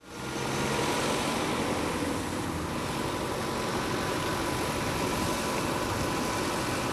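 Steady engine noise with a low hum, fading in at the very start.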